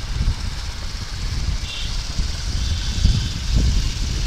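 Wind buffeting the microphone of a moving motorcycle, a steady low rumble, with the road and engine noise of the ride underneath.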